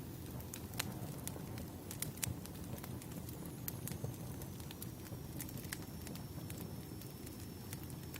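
Wood fire crackling: irregular sharp pops and snaps of burning firewood over a steady low rumble of the flames.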